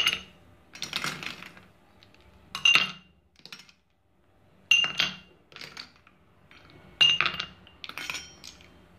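Ice cubes being put into drinking glasses from a steel spoon, each one landing with a sharp clink against the glass. There are about half a dozen clinks, one every second or two, and several of them ring briefly.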